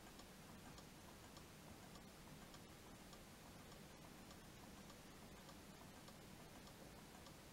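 Faint clock ticking, evenly, a little under two ticks a second, over a low steady hum.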